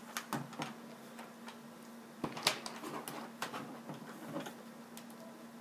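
Plastic LEGO bricks clicking and clattering as hands pick through loose pieces and snap them together, a scatter of small sharp clicks.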